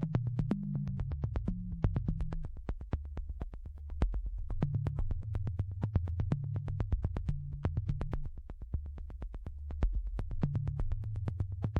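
Electronic background music: a synthesizer bass line under a quick, steady ticking beat.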